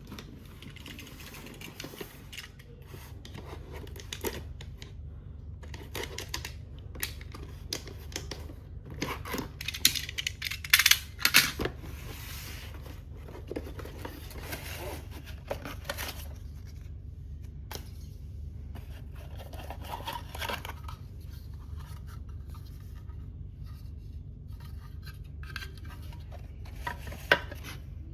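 Shipping package being opened by hand: tearing, rustling and scraping of packaging with scattered sharp clicks and clatters, busiest and loudest about ten to twelve seconds in, over a steady low hum.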